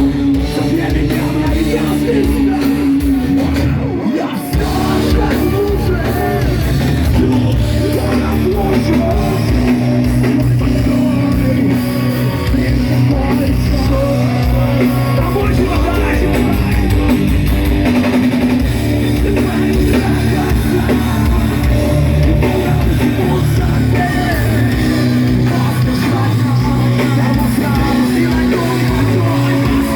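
Live rock band playing loudly: distorted electric guitars, bass and drum kit in an instrumental passage, with a brief drop in level about four seconds in.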